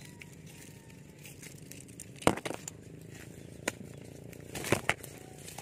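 Dry grass and reed stems rustling and snapping as they are pushed through, with a few sharp cracks: a loud one a little over two seconds in, a lighter one later, and a quick pair near the end.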